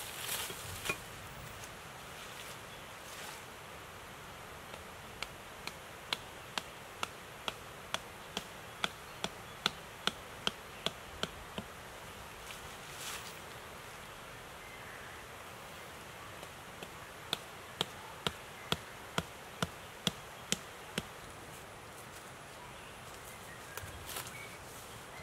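Two runs of steady, sharp knocks, about two a second, each lasting several seconds: a hand tool striking repeatedly. Insects buzz faintly behind.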